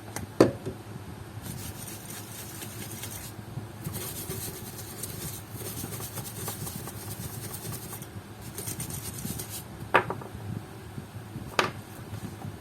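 Rubbing and scrubbing on leather sandals while they are cleaned with a liquid cleaner, in stretches of a second or two, with three sharp knocks of objects being handled or set down.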